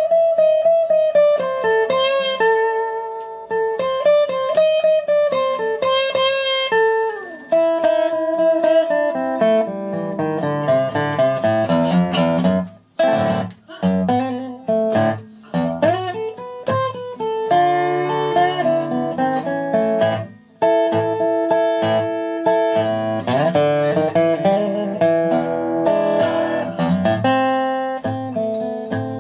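Background music: guitar playing a melody of plucked notes.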